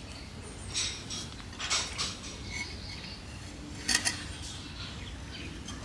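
A few short scrapes and clinks as soil and a plant's root ball are handled against a small glazed ceramic pot on a tiled floor. The loudest is a double clink about four seconds in, over a steady low background.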